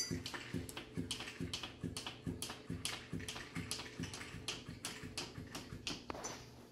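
Electric flopping-fish cat toy with a motor inside, slapping its body and tail against a table top: a steady run of soft taps about three a second.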